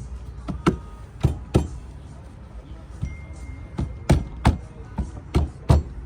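About a dozen sharp knocks and thumps at irregular intervals, some in quick pairs, as a new boat deck hatch is set into and shifted around in its deck opening to test the fit.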